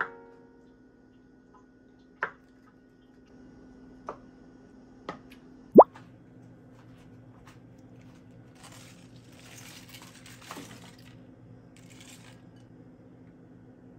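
Soft knocks and wet plops of tofu being cut on a wooden board and dropped into a pan, four in all, the loudest a single plop about six seconds in. A few seconds of soft hiss follow in the second half, over a steady low hum.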